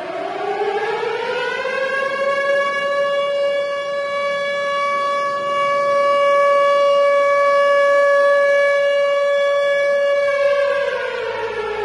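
Air-raid siren winding up to a steady wail, holding one pitch for several seconds, then winding down near the end.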